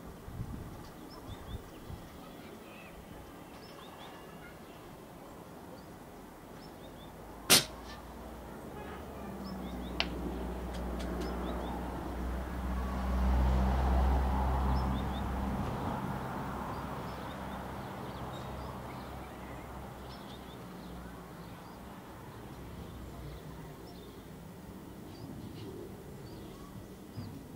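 A single sharp shot from a Logun Solo PCP air rifle, with a fainter click about two and a half seconds later. After the shot a low rumble with a faint hum swells and fades over several seconds, over a steady outdoor background with small high chirps.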